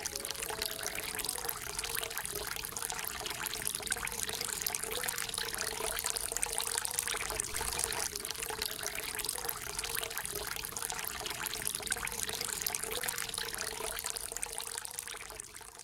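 Water pouring and splashing steadily in a continuous rush.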